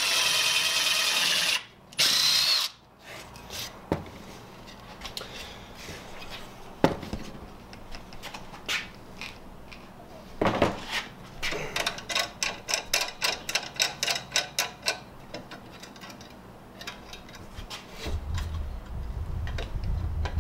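Cordless drill boring a 7/32-inch hole through a wooden blank: a steady motor whine for about two seconds, then a second short burst. After that come scattered clicks, knocks and a run of quick clicking as the scroll saw blade is handled, with a low hum near the end.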